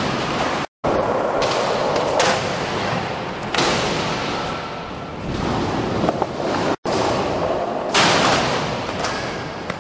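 Skateboard wheels rolling over the concrete floor and ramps, a loud, rough, continuous noise close to the microphone, with a few sharp clacks of the board about six seconds in. The sound cuts out abruptly twice.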